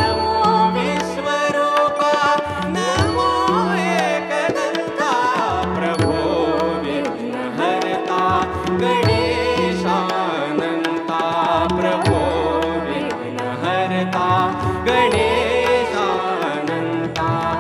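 Marathi devotional song sung live by a man and a woman in turn, with ornamented, gliding vocal lines over harmonium and tabla accompaniment.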